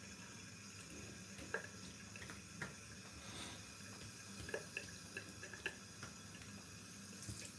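Faint drips and small splashes of water as a face and neck are rinsed by hand after a wet shave, a few separate drops falling at irregular moments.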